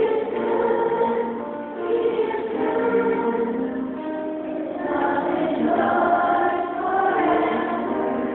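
Church congregation singing a hymn together, many voices on long held notes.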